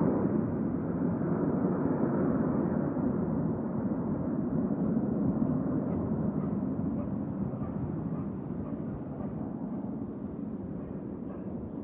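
Snowbirds' CT-114 Tutor jets flying over: a steady low jet rumble that slowly fades as the formation moves away.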